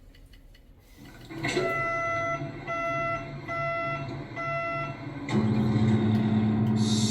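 Mini excavator's warning buzzer beeping four times when the key is switched on. About five seconds in, the engine starts and runs with a steady low hum.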